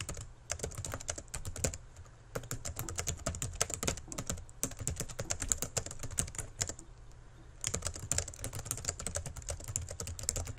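Typing on a computer keyboard: rapid, irregular key clicks in runs, with a short pause about two seconds in and another around seven seconds.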